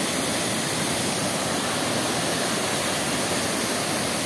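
Waterfall rushing steadily: a low cascade of water pouring over a rock ledge into a pool.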